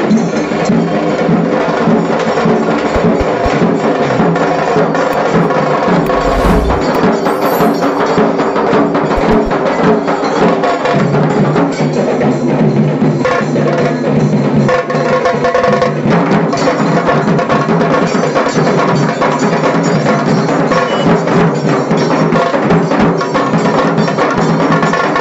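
Dhol-tasha drumming: tashas struck with sticks in fast, dense strokes over the beat of dhol drums, loud and continuous.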